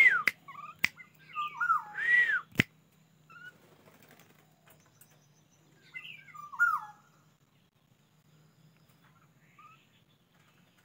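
Juvenile black-naped oriole giving short whistled calls that swoop up and down: a cluster in the first three seconds, another about six seconds in, and a few faint single notes between. Three sharp clicks come among the first calls, over a faint low steady hum.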